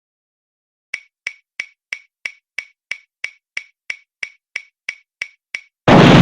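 Synthesized sci-fi sound effect: a run of about fifteen short, pitched ticks, evenly spaced at about three a second. Near the end a loud blast of noise starts suddenly.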